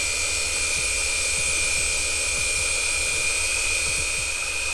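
Wltoys K989 1/28 RC car's 130-size brushed electric motor and four-wheel-drive gears spinning flat out on the rollers of a speed checker: a steady high-pitched whine over a constant hiss.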